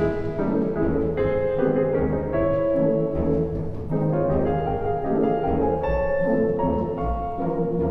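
Classical ballet music playing, a melody of held notes changing every half second or so over a low bass line.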